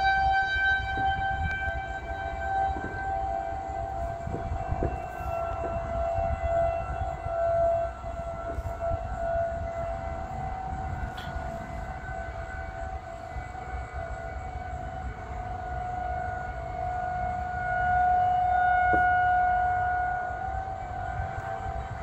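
Federal Signal 2001-SRN-130 rotating outdoor warning siren sounding a steady tone for a severe thunderstorm warning. It grows louder and softer as the horn turns, loudest about a third of the way in and again near the end.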